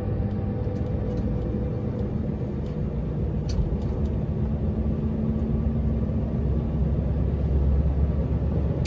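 Steady low rumble of a vehicle's engine and tyres heard from inside the cab, growing gradually louder as it picks up speed on the open road.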